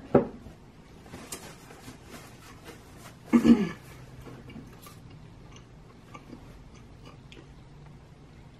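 Quiet eating and drinking sounds: a sharp click right at the start, a short hummed "mm" a little over three seconds in, then faint small clicks and mouth noises.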